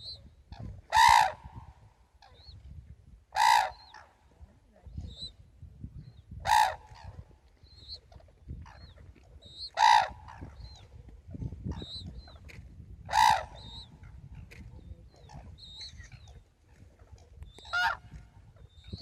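Red-crowned cranes calling: six loud, brief, trumpeting calls, about one every three seconds. Faint high chirps come in between.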